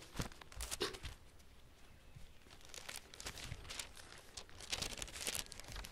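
Thin Bible pages rustling and crinkling as they are leafed through, in faint irregular crackles that grow denser in the second half.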